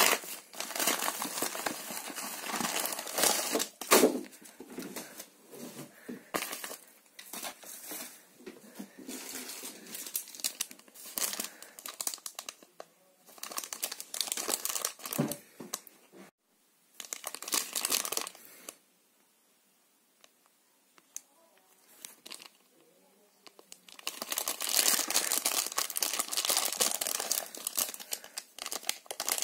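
Plastic packaging crinkling and tearing in irregular bursts as a bubble-padded mailer is opened and a clear plastic bag is handled, with a quieter stretch of a few seconds about two-thirds through.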